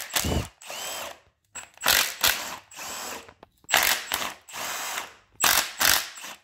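Milwaukee M12 Fuel cordless impact wrench spinning out 10 mm intake-manifold bolts in about seven short bursts, each with a brief rising and falling motor whine, separated by short pauses.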